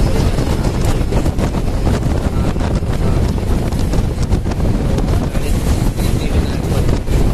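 Wind buffeting the microphone inside a moving express bus, over the steady rumble of the bus's engine and tyres on the road.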